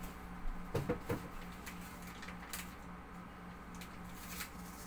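A sheet of frosted privacy window film rustling and crackling as it is handled, with a cluster of crinkles about a second in and scattered ticks after. A steady low hum runs underneath.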